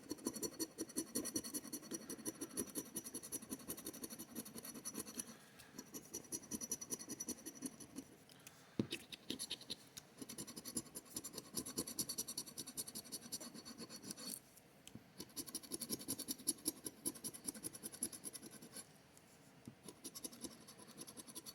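Coin or scraper scratching the latex coating off a lottery scratch-off ticket in quick rapid strokes, in several short runs with brief pauses between them.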